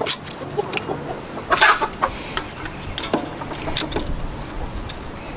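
Chickens clucking, with several sharp clicks and knocks of a metal oil filter wrench being fitted around the oil filter of a Kubota tractor.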